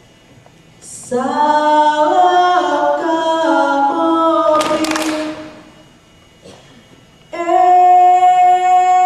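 A group of voices singing unaccompanied in long held chords that step in pitch. One phrase starts about a second in and lasts about four seconds, with a short noisy burst near its end. After a pause, a second held chord begins near the end.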